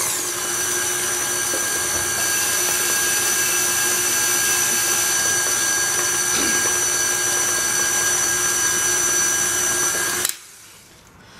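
KitchenAid Classic tilt-head stand mixer running steadily, its paddle beating cream cheese and sugar in a steel bowl, with a steady motor whine. The mixer is switched off and cuts out suddenly about ten seconds in.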